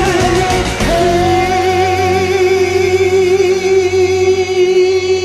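A singer holding one long final note with vibrato over a karaoke backing track.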